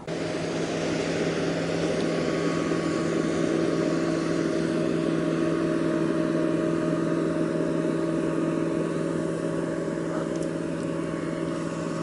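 Motorboat engine droning steadily on the water, a held hum of several tones that starts abruptly and stays level.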